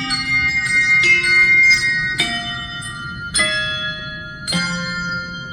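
Handbells playing a slow instrumental passage: a new ringing chord struck about once a second, with lighter single bell strokes in between, each note ringing on.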